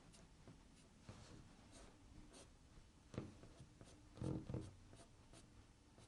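Faint scratchy strokes of a flat brush dragged across textured watercolor paper, with a few soft thumps a little past the middle.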